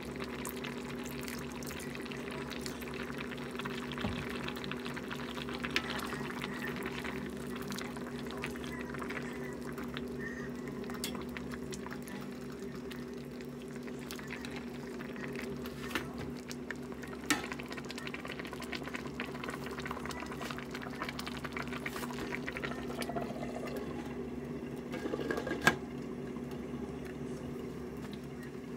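Squid adobo in soy sauce simmering in a wok, bubbling steadily over a steady low hum, with a ladle stirring and a few sharp clacks against the pan. Near the end a glass lid clacks on.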